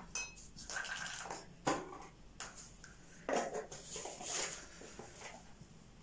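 A light metallic clink of a spoon near the start, then irregular rustling and tapping as ingredients and packets are handled beside the saucepan.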